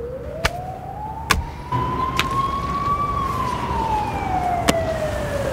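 Police car siren giving one slow wail, rising for about three seconds and then falling away, with a few sharp clicks over it.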